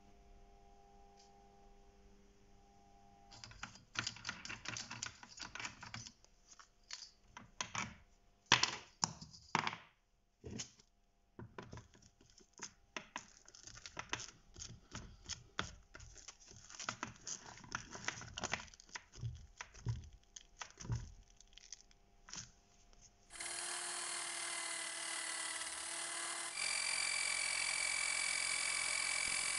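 Gloved hands handling a hook-and-loop sanding disc: irregular clicks, rustles and ripping sounds. About 23 s in, an electric sander/polisher starts with a steady whine, growing louder about three seconds later as the sanding disc grinds rust off the steel saw blade, throwing sparks.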